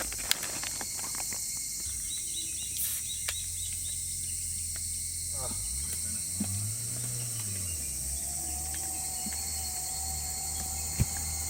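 Steady high-pitched chirring of crickets and other insects, with scattered small clicks and a low hum that rises and falls about six to seven seconds in.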